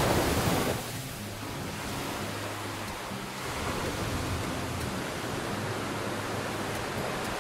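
Small waves breaking and washing up a black sand beach: a steady rush of surf, loudest in the first second.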